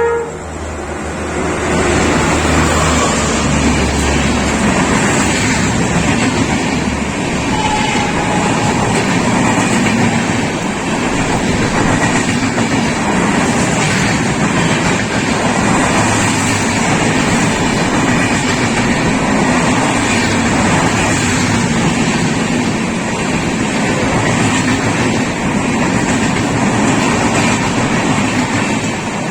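Express passenger train hauled by a WAP-4 electric locomotive passing close by, its coaches rolling over the rails with a loud, steady rushing noise that starts to fade near the end.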